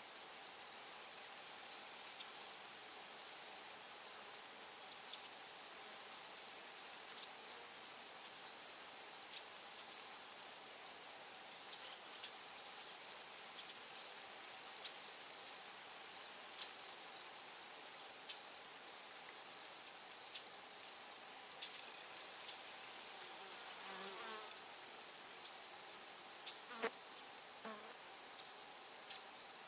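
A steady, high-pitched chorus of insects that goes on without a break.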